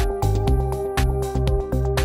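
Background electronic music with a steady beat over a sustained bass line.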